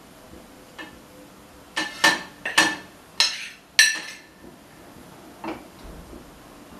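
A spoon scraping and knocking on a plate as paste is scraped off it into a wok: a handful of short scrapes about half a second apart, loudest two to four seconds in, with a lighter one before and after.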